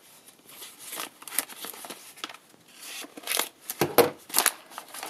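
Hands working open a tightly wrapped mail parcel: the packaging rustles and crinkles, with a louder spell of crackling and a knock about three to four seconds in.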